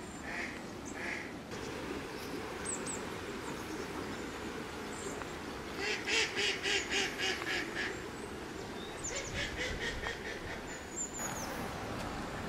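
Mallard quacking in a quick run of about eight quacks around six seconds in, then a shorter run about three seconds later.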